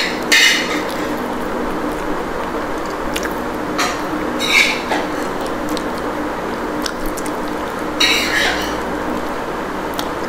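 Close-up eating sounds of rice with chicken curry: about four short noisy bursts and a few light clicks over a steady background hiss and hum.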